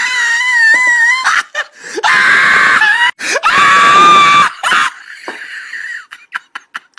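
High-pitched shrieking screams in several long, wavering cries in the first four and a half seconds, then quieter, broken sounds and a few short clicks.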